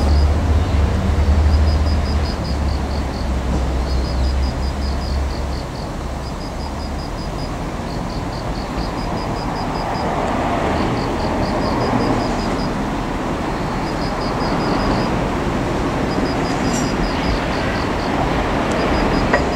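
Heavy machinery working at a distance, a steady broad rumble from a hydraulic excavator dismantling a scrapped railcar, with a deeper rumble that fades out about six seconds in. Short runs of high chirps repeat all through.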